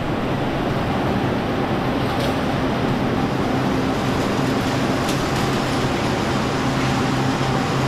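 Steady mechanical din of automatic silk-reeling machinery running in a factory hall: a constant rushing noise with a low, even hum under it.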